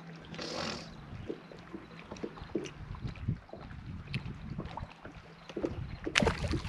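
Scattered light knocks, clicks and rustling of handling in a small fishing boat, with a short rush of noise about half a second in and a louder knock about six seconds in.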